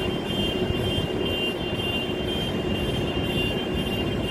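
E217-series electric commuter train running into the station at speed: a steady rumble of wheels on rails, with a steady high-pitched tone over it.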